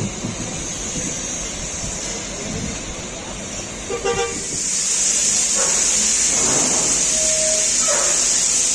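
A vehicle horn gives a short toot about four seconds in. It is followed by a loud, steady, high hiss that starts just after and keeps on.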